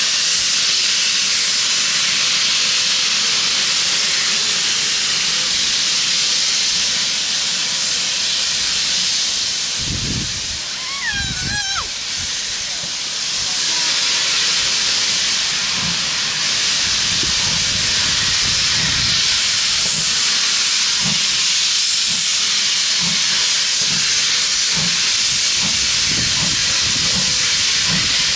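Steam locomotive 4930 'Hagley Hall', a GWR Hall class 4-6-0, standing and blowing off steam in a loud, steady hiss, typical of its safety valves lifting at full boiler pressure. About eleven seconds in a short wavering high tone cuts through, and soft irregular low thumps follow in the second half.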